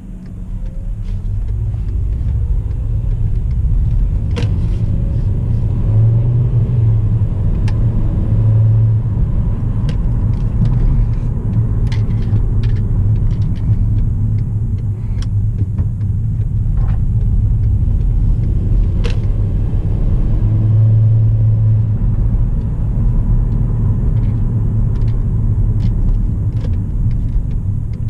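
A 2009 Volkswagen Jetta driving off on a test drive: a heavy low rumble of engine and road that builds over the first few seconds, with the engine's pitch rising and falling as it pulls away, and a few scattered sharp clicks and knocks.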